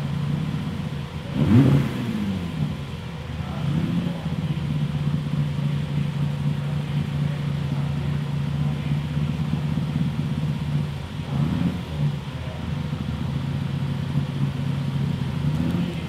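Rally car engine idling steadily, with one sharp throttle blip about one and a half seconds in and a smaller blip near twelve seconds.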